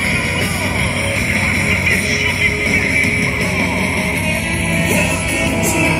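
Loud rock music with singing, played over a public-address system.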